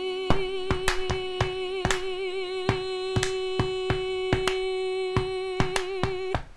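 A singer holds one long sung note with vibrato, over steady hand claps keeping the beat at about two and a half claps a second. The note ends shortly before the end, leaving the claps alone.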